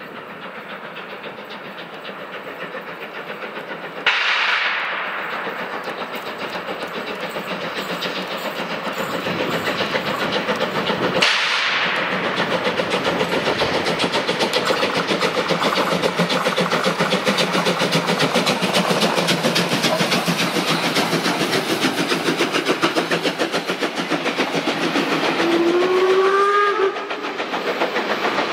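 Steam train running with a rapid, steady beat that grows louder. The sound jumps suddenly about four and eleven seconds in. Near the end a short, slightly rising whistle sounds before the sound cuts off.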